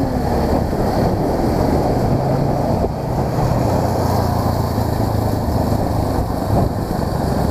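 Motor scooter's engine running at a steady cruise while riding, under a heavy rush of wind over the microphone.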